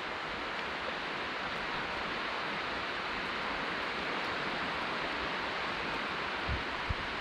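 Steady hiss of distant surf washing across a wide, flat sandy beach, with a couple of short low thumps near the end.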